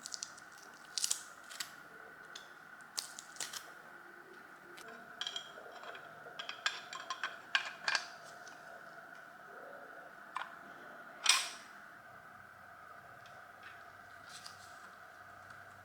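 Irregular clicks, taps and knocks of hand work on parts, over a faint steady hum; they bunch in the first half, and the loudest is a short scrape about eleven seconds in.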